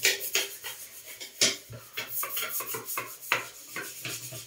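A sponge scrubbing a bathroom washbasin and its tap in quick, uneven strokes, with a few sharper scrapes standing out.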